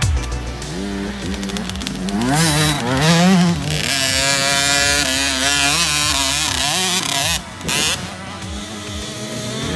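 Husqvarna TC 50's 50cc two-stroke single-cylinder engine revving up and down as the bike is ridden, its pitch rising and falling over and over. There is a short lull a little past two-thirds through.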